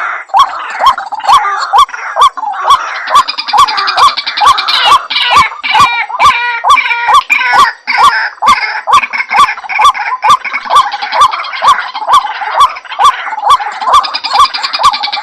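White-breasted waterhen (ruak-ruak) calling: a loud, rapid series of short hooked notes, about two to three a second, with a denser chorus of higher overlapping calls joining from about three seconds in and again near the end.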